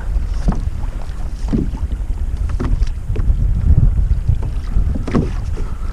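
Wind buffeting the microphone in a steady low rumble, with a few faint knocks scattered through it.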